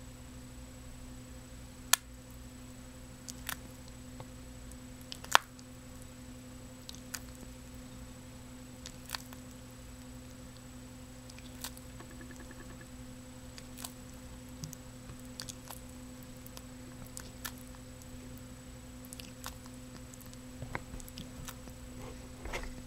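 Ornate box turtle crunching a cockroach in its beak: scattered sharp clicks and crackles, two louder snaps in the first few seconds, over a steady low hum.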